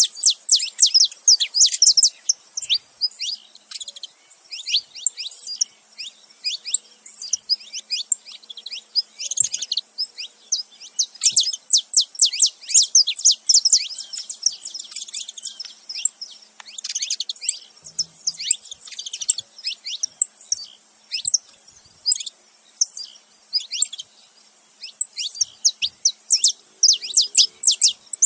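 Saffron finches, a male and a female, chirping together: rapid runs of quick, high-pitched notes in bursts with short breaks between them.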